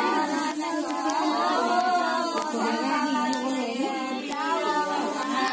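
Group of women singing a devotional song together, several voices overlapping in a continuous, unbroken line.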